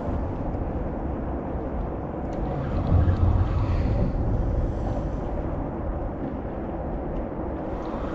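Boat motor running steadily, with wind on the microphone and a brief louder low rumble about three seconds in.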